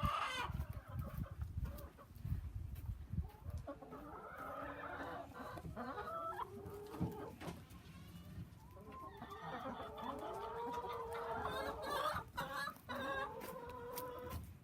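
Domestic hens clucking and calling, several at once. The calls come in two long spells with a lull in between.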